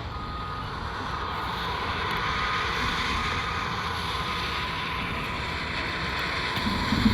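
Steady rumble of landfill heavy machinery, with a reversing alarm beeping about once a second. A single knock comes near the end.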